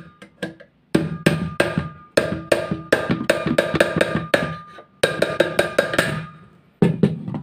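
Screwdriver knocking on a vacuum cleaner motor's housing to work the cover loose, about four knocks a second in several runs with short pauses, each knock with a short ringing note.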